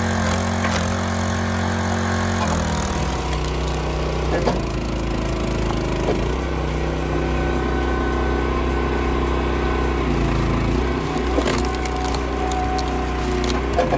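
Engine-driven hydraulic log splitter running steadily, its engine note dropping about two and a half seconds in, with a few sharp cracks of wood splitting.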